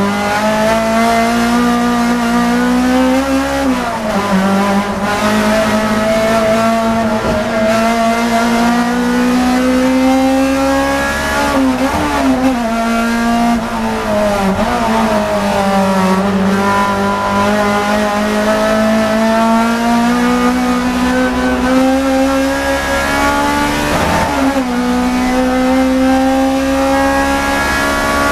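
Racing car's engine heard from inside the cockpit, pulling hard under full acceleration. Its pitch climbs steadily through each gear and drops sharply at upshifts about 4, 12 and 24 seconds in.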